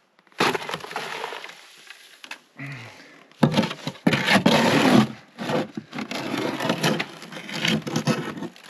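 Wet concrete mixed from navvy jack and Portland cement being worked by hand: gritty scraping and crunching in uneven strokes, loudest in the middle.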